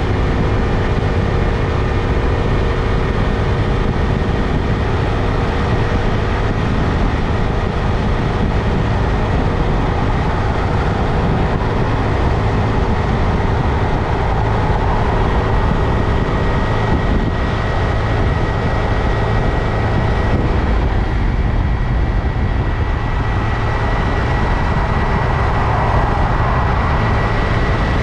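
Honda Grom's 125 cc single-cylinder engine running steadily under way, with riding noise, holding an even level throughout.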